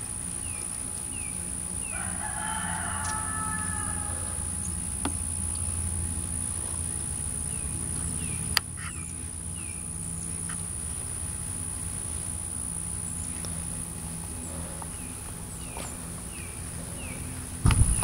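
A rooster crows once, about two seconds in, over a steady low hum. Short falling chirps repeat about twice a second in stretches, and there is a single sharp click in the middle.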